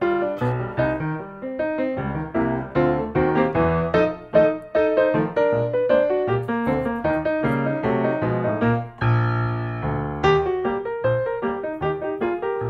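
Background piano music: a run of quick, even notes, with one chord held for about a second near the end.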